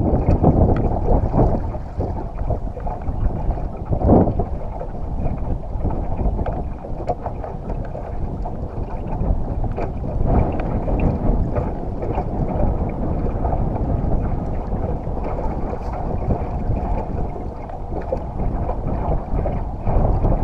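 Wind buffeting the microphone, a loud uneven rumble that swells and dips, with a few brief knocks.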